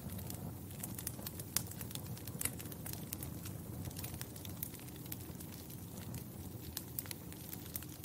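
Wood fire crackling in a fireplace: irregular sharp pops and snaps, several a second, over a low steady rumble of the burning fire.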